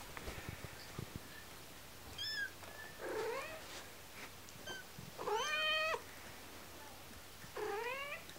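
Cats meowing: three meows that rise in pitch, the longest and loudest a little past halfway, with a few short high squeaks between them.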